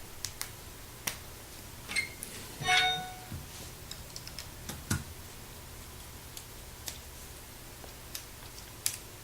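Small hard plastic LEGO pieces being handled and snapped together: scattered sharp clicks, with a brief rattle of pieces about three seconds in.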